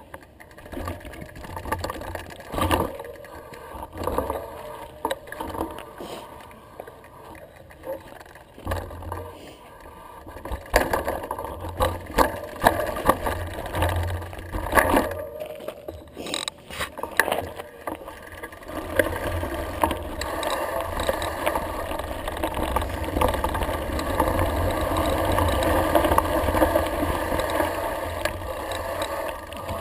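Mountain bike rolling fast down a loose gravel forest road: tyres crunching over stones and the bike rattling over bumps with scattered knocks, building into a steadier, louder rush about two-thirds of the way in.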